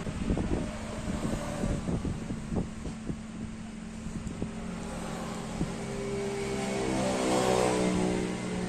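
A few light knocks and clicks of vegetables and a bowl being set into a steel pot. From about halfway through, a passing motor vehicle's engine hum swells to a peak near the end and starts to fade.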